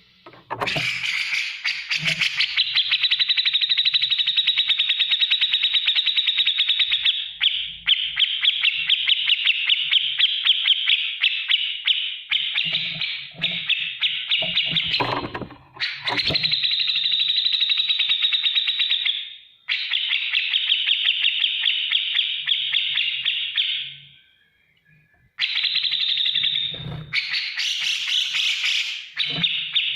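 Cucak jenggot, a bulbul, singing hard in long runs of rapid, chattering repeated notes, the fast 'ngetik' style. The runs break off in short pauses, with a longer gap about 24 seconds in.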